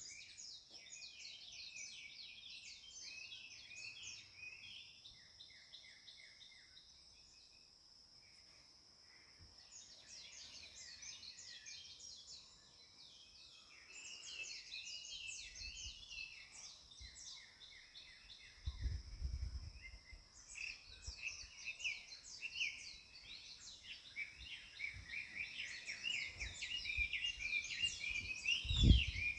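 A chorus of small songbirds chirping and trilling, thinning out about a third of the way in and building again, over a steady high-pitched whine. A low thump comes about two-thirds of the way in and a louder one near the end.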